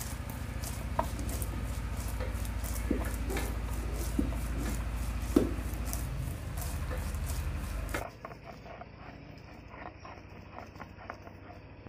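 Whole spices and turmeric being ground by hand on a flat stone slab (sil-batta): a stone roller scrapes and rubs back and forth over the slab in repeated strokes, with a few small knocks. About eight seconds in it drops to a quieter scraping.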